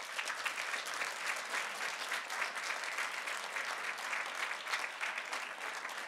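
Audience applauding, starting suddenly at the end of an award announcement and going on steadily.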